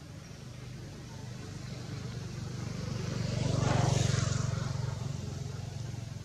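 A motor vehicle's engine passing by: a low hum that grows louder to a peak about four seconds in and then fades away.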